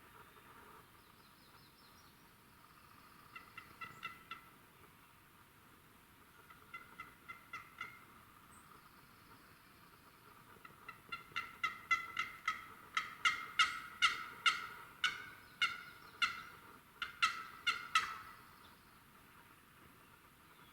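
Turkey yelping: three runs of evenly spaced, nasal notes. Short runs come about 3 and 7 seconds in, then a longer, louder run from about 11 to 18 seconds.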